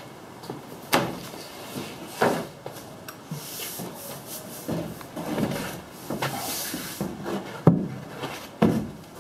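Thin plywood wall panel being handled and flipped over: scraping and rubbing of wood on wood, with several sharp wooden knocks, the loudest near the end.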